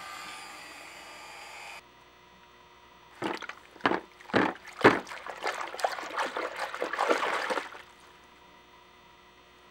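A brush scrubbing a moped cylinder in soapy water in a plastic basin: several sharp splashing strokes, then quicker sloshing and scrubbing for about four seconds before stopping. A faint steady hiss before it cuts off about two seconds in.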